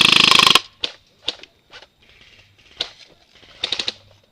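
Airsoft rifles firing: a full-auto burst of rapid, even shots cuts off about half a second in. Single shots follow, then a short quick burst of a few rounds near the end.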